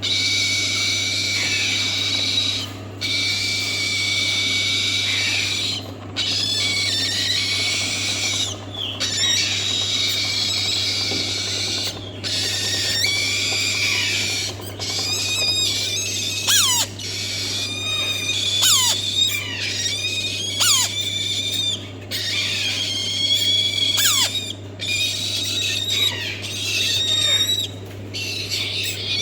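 Baby Riedeli eclectus parrot calling: long, steady, high-pitched calls of a few seconds each with short breaks between, then from about halfway through, quick squeals that fall sharply in pitch.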